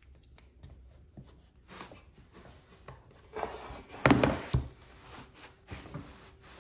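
A wooden cutting board being handled as double-sided tape is stuck to it: quiet rubbing and small taps, then a louder scrape and a wooden knock about four seconds in as the board is flipped and set down on a plywood surface.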